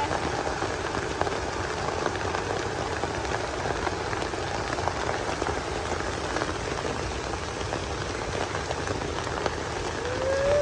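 Steady rain falling, with many small drops pattering on surfaces. A short rising voice sound comes in near the end.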